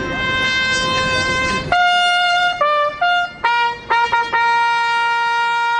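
Trumpet played solo: a long held note, then a few shorter notes a little higher, then a long held note from about four seconds in.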